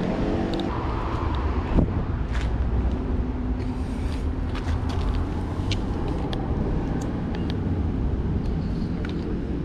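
Steady city street traffic: a low rumble of car engines and tyres. A sharp knock comes about two seconds in, and a few small clicks follow.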